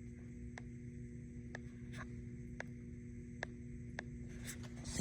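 Steady electrical machine hum with light, irregular clicks about once a second and a couple of short hissy rustles, the last just before the end.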